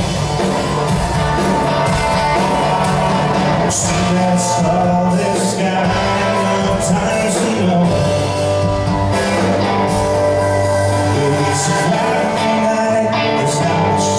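Live band playing a song: drums, keyboard, guitar and bass, with a singer. Cymbal crashes come about four seconds in and again near the end.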